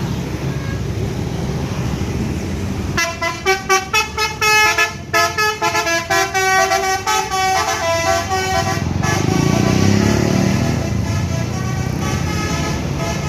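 Telolet basuri musical horn on an intercity bus playing a quick melody of short toots at changing pitches, starting about three seconds in and lasting about six seconds. A bus engine then runs louder for a couple of seconds over steady traffic noise.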